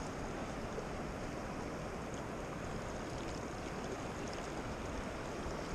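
Steady rush of the Yellowstone River's big, fast water flowing past.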